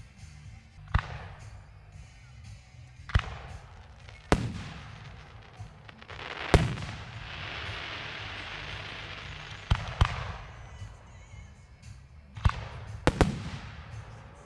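Aerial firework shells bursting: about nine sharp bangs at irregular intervals, each trailing off in an echo. After the loudest bang, about halfway through, comes a steady hiss lasting about three seconds.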